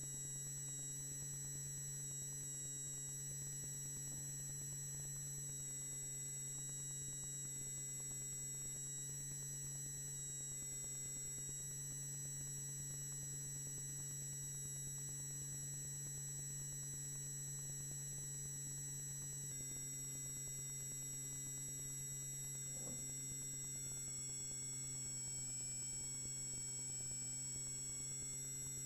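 Faint steady low hum with several thin, steady high-pitched whining tones above it; the high tones waver slightly near the end.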